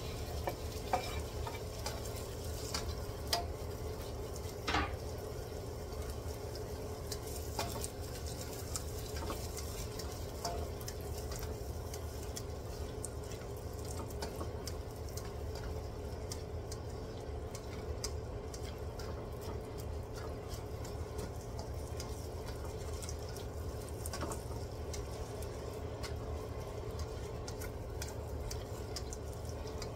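Diced onion frying gently in butter and oil in a wok, a steady sizzle, while a spatula stirs it and now and then taps or scrapes against the pan, mostly in the first several seconds.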